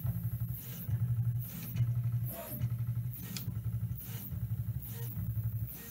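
Prusa i3 MK3 stepper motors humming in short, regular moves, about one every 0.8 s, as the print head steps from point to point and probes the bed during 7x7 mesh bed leveling.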